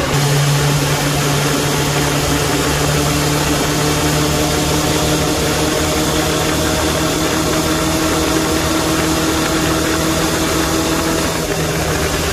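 Suzuki Bandit 600S motorcycle's inline-four engine running at a steady, unchanging speed, with a hiss over it.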